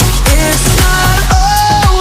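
Electronic dance music with a steady kick-drum beat, about two beats a second, and a synth melody.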